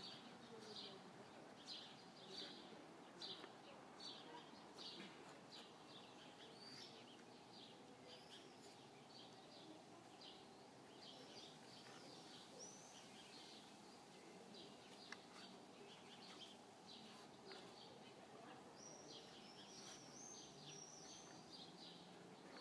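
Faint outdoor ambience with small birds chirping: short high chirps repeating every second or so, more of them near the end, over a low steady background hum.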